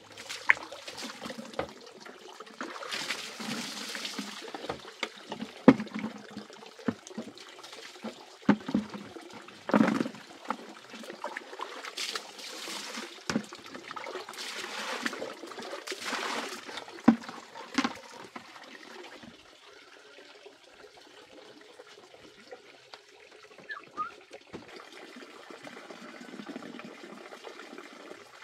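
Water trickling from a bamboo spout into a large jar, with repeated splashing as water is scooped out with a plastic scoop and poured out. Scattered knocks of the scoop and basket come with it. In the last third only the quieter trickle is left.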